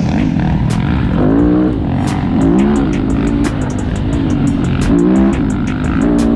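Dirt bike engine running on a rough trail, its revs rising and falling again every second or so as the throttle is opened and closed.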